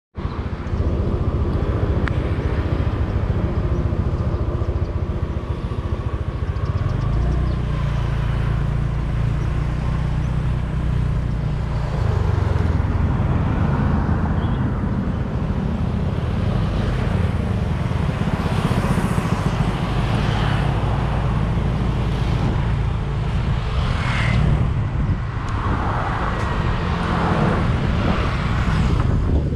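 Motorbike engine running steadily on the move, with road noise around it; the engine note shifts about seven and again about twelve seconds in as the speed changes.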